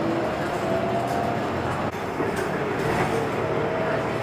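Steady engine and road rumble inside a moving city bus, with a faint whine that shifts up and down in pitch.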